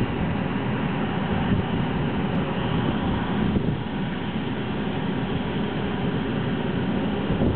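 A motor boat's engines droning steadily as it motors into the harbour, mixed with wind rumbling on the microphone.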